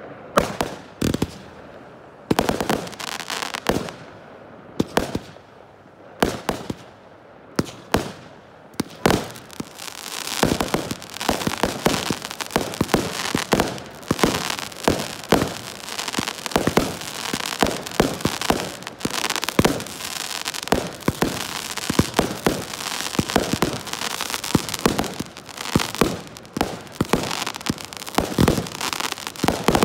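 Aerial fireworks bursting overhead with sharp bangs, a few seconds apart at first. From about nine seconds in they turn into a dense barrage of overlapping bangs and crackling.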